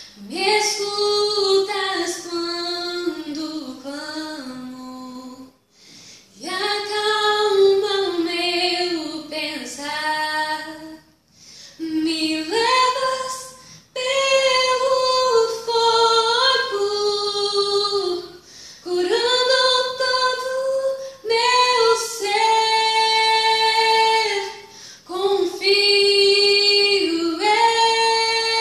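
A young woman singing a Portuguese-language worship song unaccompanied, in long held phrases that break briefly for breath every few seconds.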